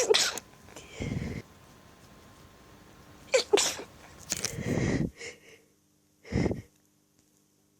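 A person's sneezing fit: several sneezes in a row from an allergy attack, with breaths between, the loudest at the start and about three and a half seconds in.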